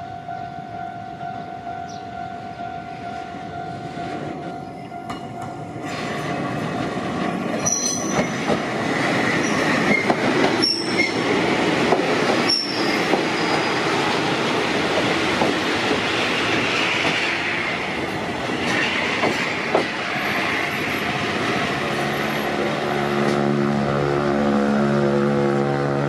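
Wakayama Electric Railway 2270-series electric train running past close by: a rumble of wheels on rail that builds from about six seconds in, with clicks over the rail joints and a few brief high wheel squeals partway through. Near the end, low humming tones step up and down.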